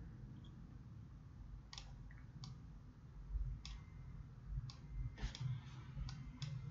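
Faint, sharp computer mouse clicks, about eight of them at irregular intervals starting around two seconds in, over a steady low hum.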